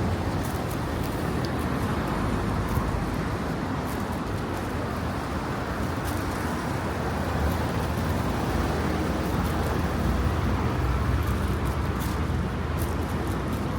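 City street traffic noise: a steady wash of road vehicles running and passing, with scattered short clicks.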